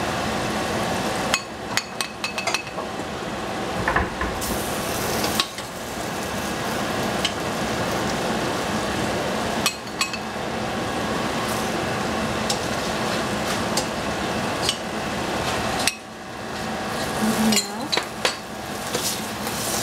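Capsicum and lima beans sizzling steadily in a hot pan while being stir-fried, with a spatula knocking and scraping against the pan in repeated clusters of clicks.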